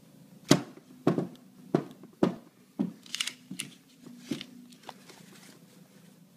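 Paper banknotes being handled, crinkling, with about eight sharp snaps or clicks at irregular intervals.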